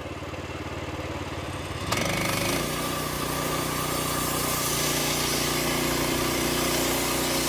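Small gasoline engine of a portable bandsaw mill idling, then throttling up sharply about two seconds in and running steadily at higher speed.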